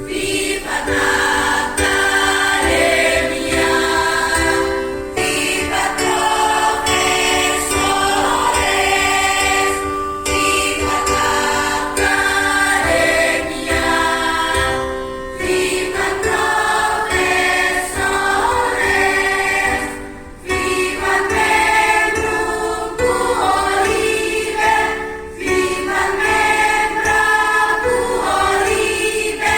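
A choir singing in parts, in phrases of about five seconds with short breaks between them.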